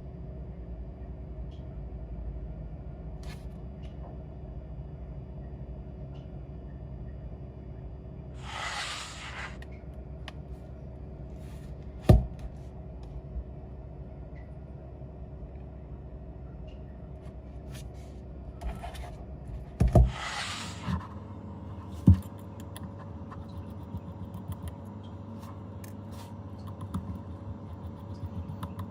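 Repair-bench handling over a steady hum: a few sharp tool clicks and knocks, and two short hisses lasting about a second each.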